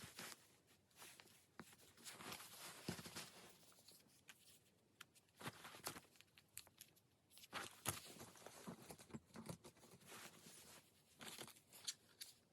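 Close, soft paper-crafting sounds: stickers being peeled off their sheets and paper rustling and crinkling, in irregular bursts with small sharp clicks and short quiet gaps.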